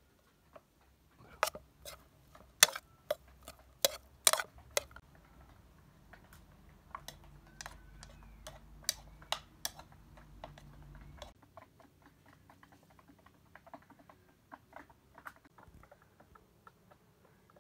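Irregular sharp clicks and light clinks, some ringing briefly: loudest and closest together in the first five seconds, then sparser. A low hum runs underneath until about eleven seconds in.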